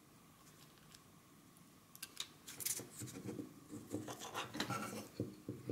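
Near silence for about two seconds, then light scraping, rubbing and small clicks as a circuit board and the PDA's plastic case are handled and fitted together by hand.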